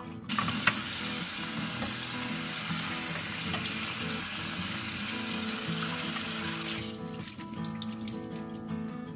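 Kitchen tap running onto cooked noodles in a metal strainer in a stainless steel sink as they are rinsed and tossed by hand; the water starts just after the beginning and shuts off about two-thirds of the way through. Acoustic guitar music plays underneath.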